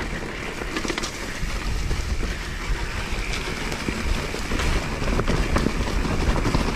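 Wind buffeting the rider's action-camera microphone as a mountain bike rolls down a dirt singletrack, with tyre noise over dirt and dry leaves and sharp clicks and rattles from the bike over bumps.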